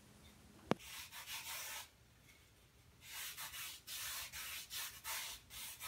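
Hand sanding or filing a carved foam climbing hold: quick rasping strokes, two or three a second, in two runs separated by a short pause. A single sharp tap sounds just before the first run.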